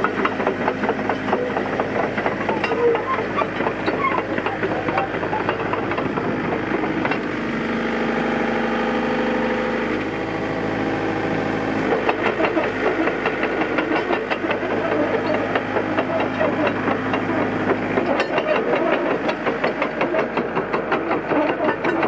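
Hitachi EX60 7-tonne excavator's diesel engine running, with a steady whine held from about seven to ten seconds in.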